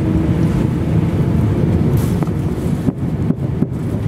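Cabin noise of an Airbus A350-900 taxiing: a steady low rumble of the Rolls-Royce Trent XWB engines at taxi power and the gear rolling, with a few short knocks about three seconds in.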